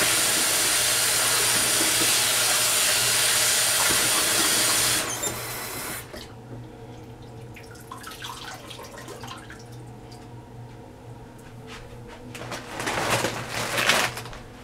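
Tap water running into a sink over hair being rinsed of conditioner, shut off about five seconds in. Quieter handling follows, with a couple of brief swishing bursts near the end.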